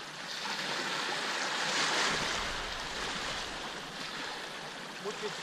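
Small waves breaking and washing up a sandy beach, the surf swelling to its loudest about two seconds in and then easing off.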